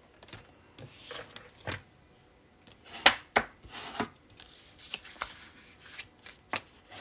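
Red cardstock card base being folded into a gatefold along its score lines, the creases pressed down by hand and with a bone folder: soft papery rustles, then several sharp scraping strokes in the second half.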